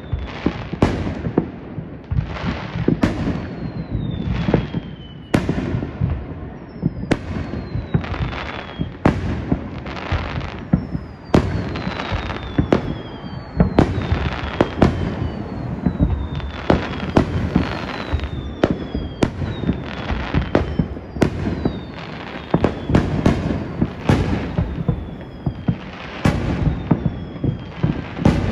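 Aerial firework shells bursting in quick succession: sharp bangs about one or two a second over a low, continuous rumble, with high whistles that fall in pitch between them.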